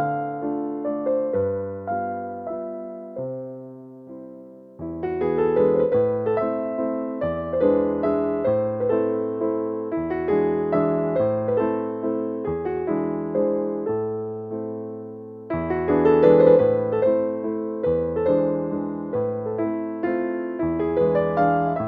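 Background piano music: gentle electric-piano chords and melody over held bass notes, dropping away twice and coming back fuller.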